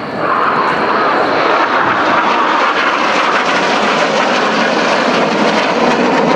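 A pair of BAE Hawk T1 jets flying past, their Adour turbofan engines making a loud, steady jet roar that swells just after the start and slides lower in pitch toward the end as the aircraft pass.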